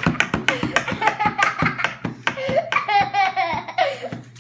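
A toddler laughing hard, with a rapid run of slaps from a flat hand hitting a wooden tabletop.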